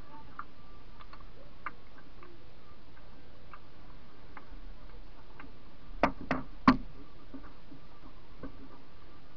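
Light ticks and knocks on a canoe hull, picked up through a camera mounted on the bow, over a steady hiss. Three sharp knocks come in quick succession a little past halfway, the last the loudest.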